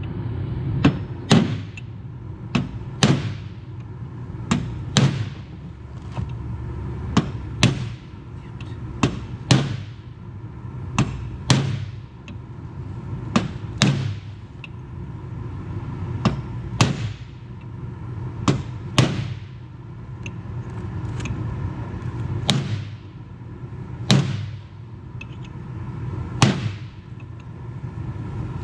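Hammer blows on a steel punch, driving a tight bearing race into a John Deere 6400 front planetary hub: sharp metallic strikes with a short ring, about one every one to two seconds and sometimes in quick pairs, over a steady low hum.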